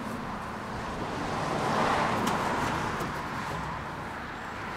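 A vehicle passing by, its road noise swelling to a peak about two seconds in and then fading.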